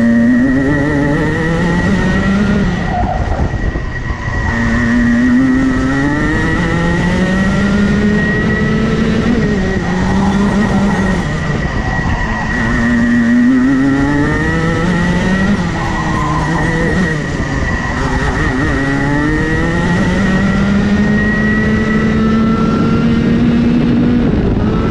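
Racing kart engine on a lap, revving up on the straights and dropping off into the corners again and again, heard from on board with wind rumbling on the microphone. A steady high whine runs alongside the engine.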